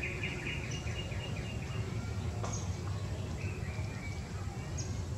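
A quick run of high, evenly repeated chirps over about the first two seconds, then a few single short chirps, over a steady low outdoor rumble.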